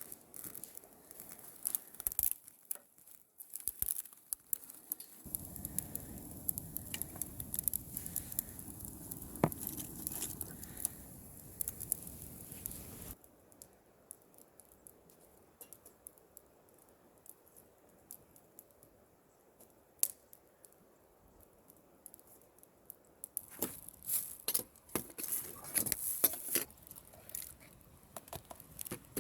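Rustling and crinkling with scattered small clicks and knocks, as of things being handled and unpacked. A steady low rushing noise runs for several seconds in the first half.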